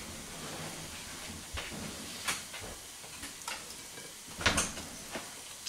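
Knife and fork carving a freshly roasted duck: a handful of sharp crackles and scrapes as the blade cuts through the crisp skin and meets the plate, the loudest about four and a half seconds in, over a steady low hiss.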